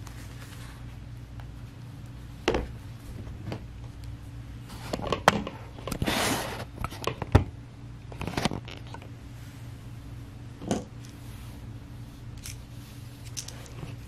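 Scattered light clicks and knocks, with a brief scrape about six seconds in, from hands handling the opened MacBook Air 2020 laptop and setting it down on the work mat, over a steady low hum.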